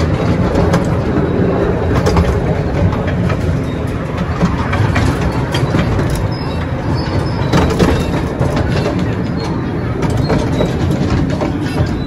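The Currumbin Express sightseeing train running along its track: a steady rumble with frequent short clicks and knocks from the wheels on the rails.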